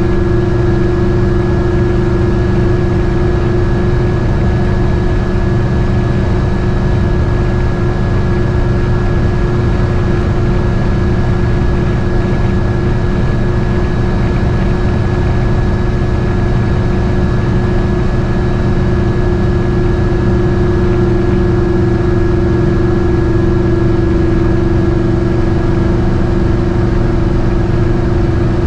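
GMC Motorhome's V8 engine running steadily while driving, heard inside the cab as an even drone with a constant whine above it.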